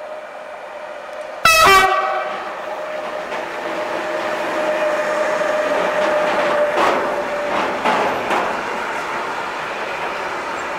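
A Bombardier Traxx electric locomotive hauling a container train passes close, with a short, loud horn blast about a second and a half in. A steady whine runs on until about seven and a half seconds in, and the container wagons roll past with continuous wheel noise and a few sharp clacks over the rail joints.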